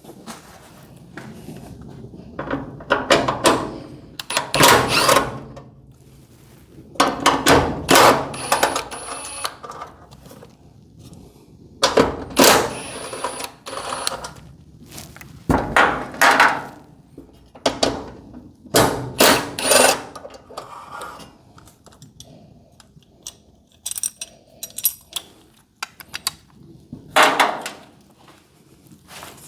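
Metal garage-door hinge hardware and hand tools knocking and clinking as they are handled, in a long run of separate clanks and rattles, some with a brief metallic ring.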